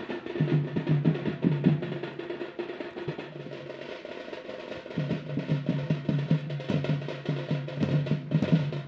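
Drums beaten in a fast rhythm with rolls, over a steady low tone.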